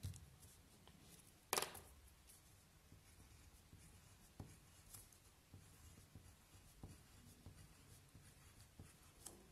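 Pen drawing short curved strokes on paper, a faint scratching with small ticks. A brief, sharper noise stands out about one and a half seconds in.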